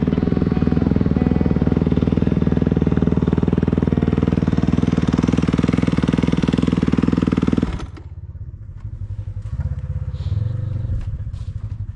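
Mini bike engine running as it is ridden, with a dense rapid beat, then dropping suddenly to a much quieter low idle about eight seconds in as the bike pulls up.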